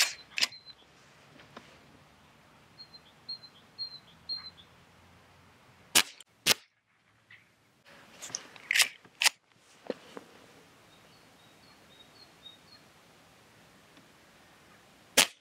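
Umarex RP5 CO2 air pistol being fired and worked by its pump action. Sharp cracks come in pairs about half a second apart, four times over, with a few lighter clicks between.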